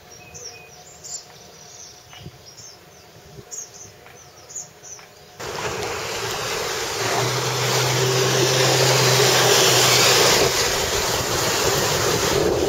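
Faint, high chirps over quiet ambience, then about five seconds in, an abrupt switch to loud wind and rushing water on open water as the runabout speeds past, throwing spray. A steady low hum sits under the rush for about three seconds.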